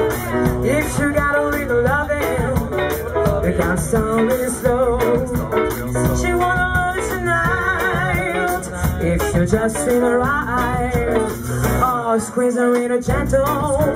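Live band playing a rhythm-and-blues song through a club PA: electric guitar, bass, drums and keyboard, with no sung words. The bass drops out for about a second near the end.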